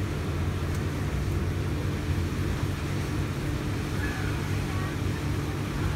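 Steady low motor hum that holds an even level, with faint distant voices about four seconds in.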